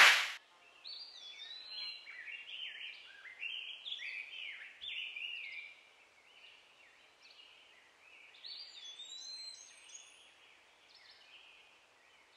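A brief loud burst of static at the start, then birds singing: many quick chirping notes sliding up and down and overlapping, thinning out near the end.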